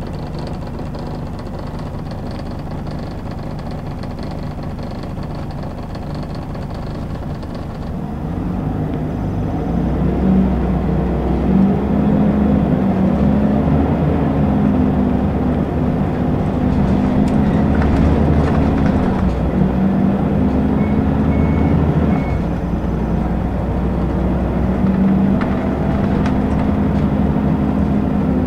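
Scania L94UB city bus's diesel engine heard from inside the passenger cabin, running steadily at first. About eight seconds in it grows louder as the bus pulls away, its note rising and then dropping back several times as the ZF automatic gearbox shifts up.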